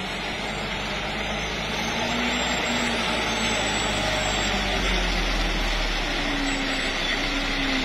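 Mitsubishi light truck's diesel engine running as it approaches, getting louder over the first two seconds or so and then holding steady.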